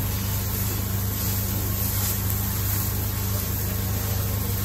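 Chicken pieces and sliced onions sizzling on a large flat griddle as a metal spatula stirs them, over a steady low hum.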